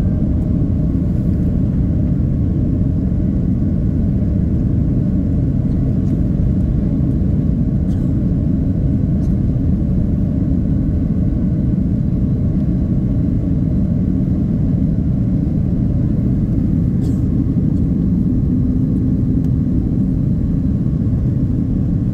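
Steady cabin noise inside a Boeing 767-300 airliner: a low rumble of engines and airflow with faint thin whining tones above it.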